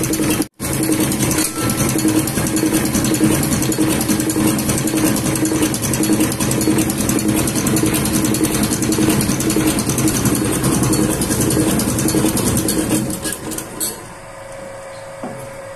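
Diesel fuel-injection pump test bench running a VE rotary pump, a steady, fast mechanical clatter. There is a brief break about half a second in, and the sound drops off sharply shortly before the end.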